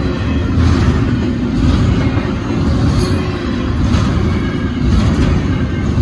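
Double-stack intermodal well cars of a freight train rolling steadily through a grade crossing: a loud, continuous rumble of wheels on rail, with a faint clack about once a second.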